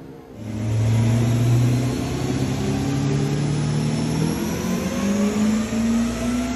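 Twin-turbo LS V8 in a Jeep TJ under load on a chassis dyno during a pull. It comes in loud about a third of a second in, and its pitch climbs steadily over the last couple of seconds as the revs rise, with a thin high whine rising alongside.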